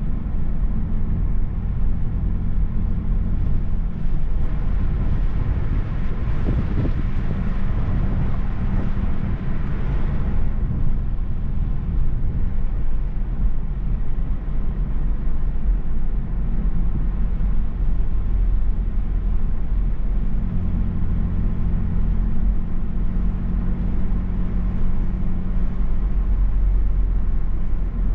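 Inside the cabin of a Mazda3 Turbo cruising: a steady low engine and road rumble. From about four seconds in, a hiss of tyre and road noise rises for several seconds, then drops away about ten seconds in.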